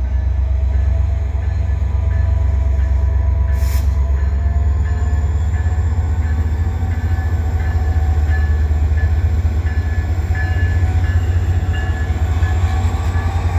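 VIA Rail F40PH-2 diesel locomotive pulling out and passing close by, its turbocharged EMD 16-cylinder two-stroke engine running under power as a loud, steady low rumble with a faint whine that slowly rises in pitch. A short hissy burst comes about four seconds in.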